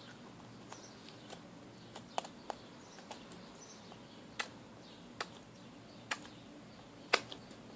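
Faint, irregular small sharp clicks and pops, about a dozen, from slime being handled and taken out of its small box.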